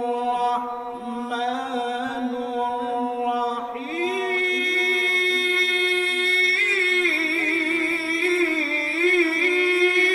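A male qari reciting the Quran in melodic tilawat style, drawing out a long held vowel. About four seconds in the pitch steps up, and through the later part the held note wavers in ornamented turns.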